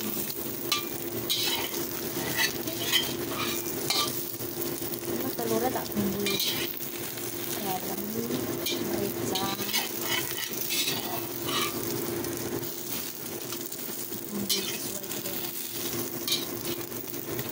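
Enoki mushroom and egg patty sizzling in hot oil in a wok. Short clicks and scrapes against the pan are scattered throughout.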